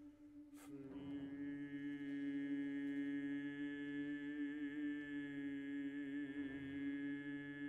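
A baritone voice holds one long, soft, low sung note, wavering for a while in the middle. Under it a choir sustains a steady note. A short sharp knock or chord sounds about half a second in, just before the voice enters.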